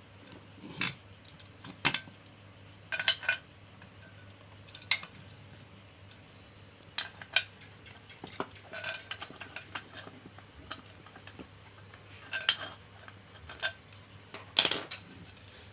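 Irregular metallic clinks and taps from small metal parts and tools being handled during work on a sewing-machine clutch motor's brake assembly, with about a dozen sharp knocks at uneven intervals.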